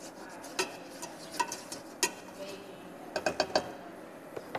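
A utensil stirring in a cooking pot, knocking and clinking against its sides a few times with a short ring. There is a quick run of four or five knocks about three seconds in.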